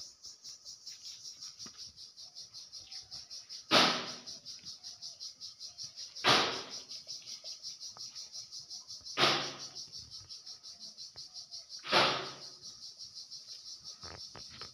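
Crickets chirping in a steady, rapid, high-pitched pulse, with a louder, harsher burst standing out four times, about every three seconds.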